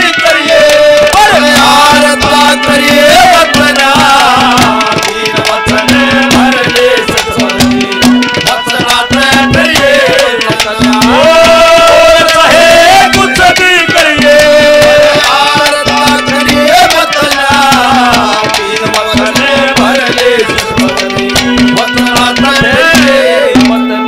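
Instrumental interlude of Haryanvi ragni music: a hand drum plays a steady, busy rhythm under a melody with sliding, bending notes and a repeated low note.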